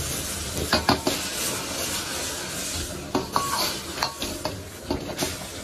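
Steady sizzle of fish braising in a wok, with a metal utensil clicking and scraping against the pan: a couple of knocks about a second in and a run of them in the second half.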